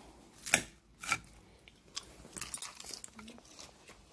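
Close-up sounds of salad being eaten: a few sharp crunches and clicks of bites into fresh greens.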